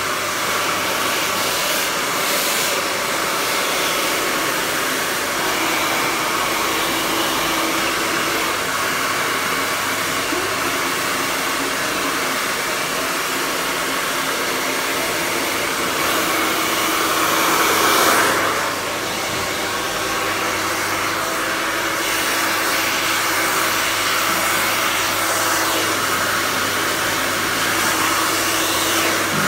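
Handheld hair dryer blowing steadily during a blow-dry, briefly louder a little over halfway through.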